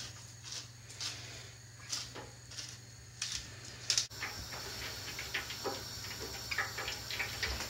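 Faint scattered clicking from a hand-twisted spice mill grinding over raw steaks. About four seconds in, a steady soft hiss with fine crackling sets in.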